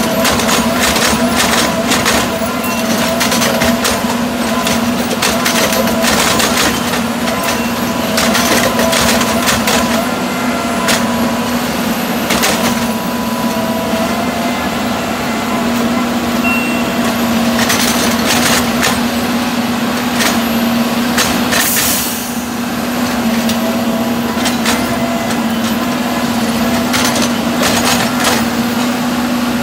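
Diesel engine of a Harsco rail maintenance machine running steadily, with irregular metallic clanks and knocks from the machine's working gear on the track. A short hiss of air breaks in about three quarters of the way through.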